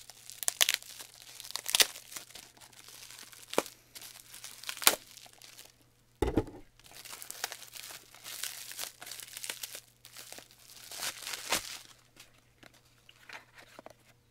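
Bubble wrap and packing being crinkled and torn open by hand: an uneven run of crackles and rips, with one dull thump about six seconds in.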